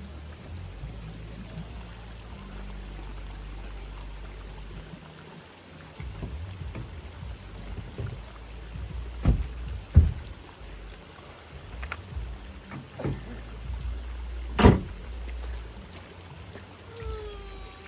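Running water with a steady low rumble, broken in the second half by several sharp knocks and splashes.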